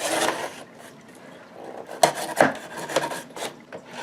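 A cardboard shipping box being opened by hand: several short rasping scrapes and rips at the box and its packing tape.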